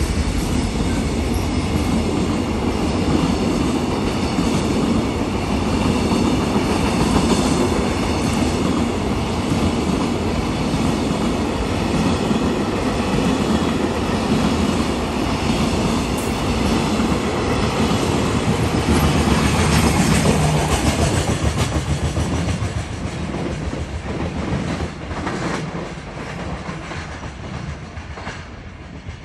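Container wagons of a freight train running through a station, their wheels clattering over the rail joints. The clatter stays loud for about twenty seconds, then fades as the tail of the train draws away.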